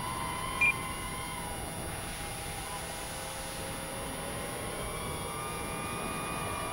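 Whine of small RC aircraft electric motors and propellers in flight: the FPV quadcopter and the model jet, their pitch drifting up and down with throttle. A short high beep sounds under a second in.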